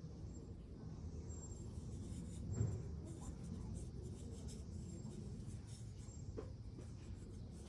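Scratchy rubbing and handling noise from fingers turning a small clay bowl, with one soft bump about two and a half seconds in.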